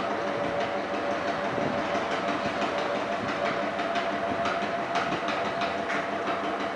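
Potter's wheel spinning: a steady mechanical hum with irregular light clicks and rattles.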